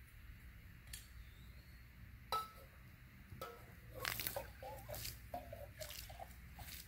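Metal camp cup and metal bottle clinking together, with one sharp clink about two seconds in, then a run of light clinks and short rings as liquid is tipped out of the cup.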